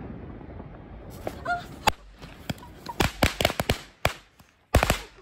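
Firecrackers going off: a rapid, irregular run of sharp bangs starting about a second in, bunching into quick clusters later on.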